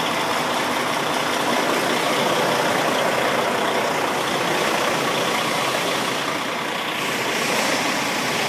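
Diesel engine of a Freightliner Columbia tractor truck running steadily, a dense, even rumble.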